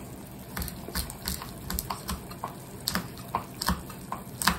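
Green curry simmering in a saucepan, with irregular small pops of bubbles bursting at the surface, several a second, over a faint steady hiss.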